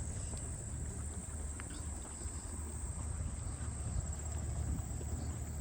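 Steady, high-pitched insect chorus, a late-summer drone of crickets or katydids, over a low rumble and a few soft ticks.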